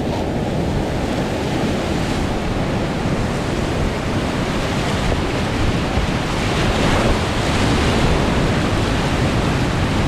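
Whitewater river rapids rushing, a dense steady wash of water noise, with wind buffeting the microphone.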